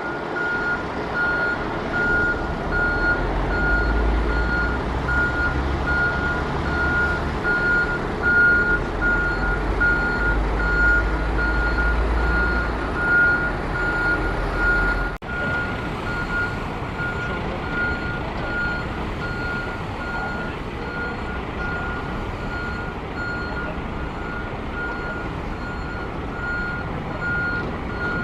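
A vehicle's reversing alarm beeping steadily: a single high tone repeating at even spacing. Under it is a low rumble with wind noise, and the rumble stops abruptly about halfway through.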